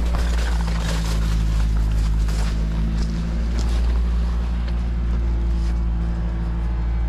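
Small engine running steadily, with scattered clatters and knocks over it.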